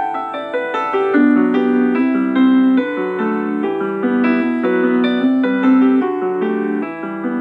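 Piano music playing a melody over chords, with lower notes coming in about a second in.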